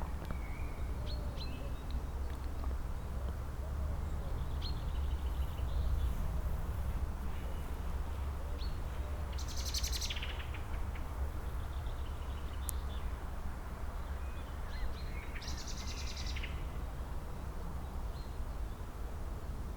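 Several small songbirds chirping and singing, with two louder, rapid song phrases about halfway through and again near three quarters of the way in. A steady low rumble runs underneath.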